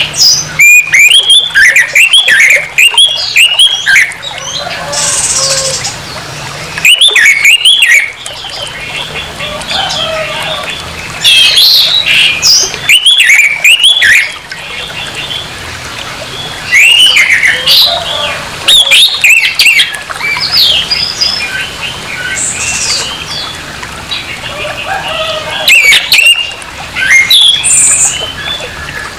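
Orange-headed thrush (anis merah) singing in a harsh voice: loud bursts of quick sweeping notes lasting a few seconds each, with short pauses between them.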